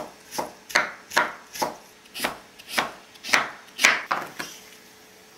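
Kitchen knife slicing Korean radish into thin matchsticks on a wooden cutting board: about ten even knife strokes, roughly two a second, stopping about four and a half seconds in.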